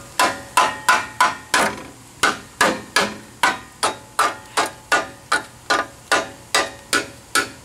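Claw hammer striking the rusty steel frame rail of a Jeep Wrangler YJ in a steady run of sharp blows with a short metallic ring, about two and a half a second, knocking rust flakes loose. The hammer is sounding out the frame for rot, telling solid metal from rust-softened spots.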